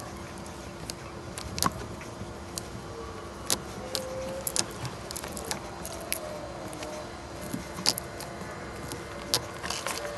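Scattered sharp clicks and snaps of a hand wire stripper-crimper and the wires being handled as an in-line fuse link is spliced into a horn's positive lead, over a faint steady hum.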